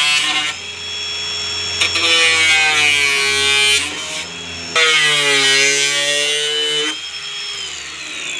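Small handheld power tool cutting relief slits into a fiberglass bumper in several passes; its motor whine sags in pitch as the blade bites and recovers between cuts. Near the end it is switched off and winds down with a falling whine.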